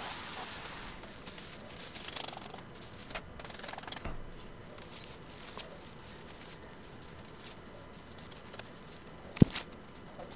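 Faint rustling with scattered short clicks, and one sharp snap near the end: a long-handled branch clipper cutting napier grass stalks.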